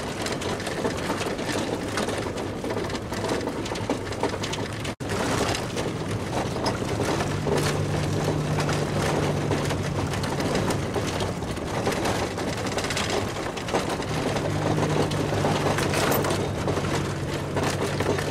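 Pickup truck driving over a rough off-road trail: a steady low engine hum with continuous rattling and crunching. The sound cuts out for an instant about five seconds in.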